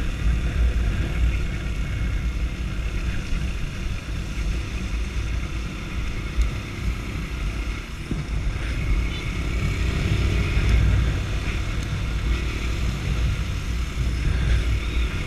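Sundown STX 200 Motard's single-cylinder engine running under way, with a heavy, uneven wind rumble on the camera microphone.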